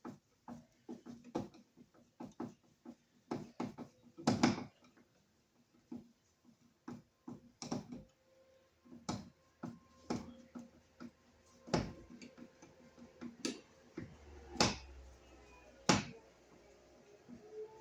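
Irregular clicks and light knocks of hands working on a wall receptacle and its parts, with a few sharper knocks among them.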